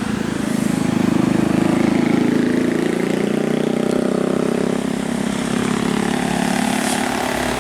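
A large road vehicle's engine running as it passes close by: a steady engine drone that builds over the first couple of seconds and fades after about five seconds.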